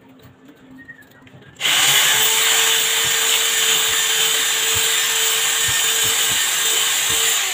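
Corded electric drill boring into a wall: it starts about one and a half seconds in, runs steadily and loudly for about six seconds, then winds down as the trigger is released near the end.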